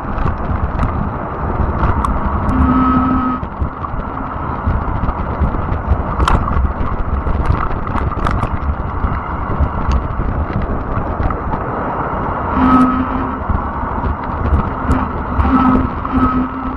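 Wind buffeting the microphone over the rumble of a fat-tire e-bike rolling along a trail, with scattered clicks and rattles and a few brief humming tones.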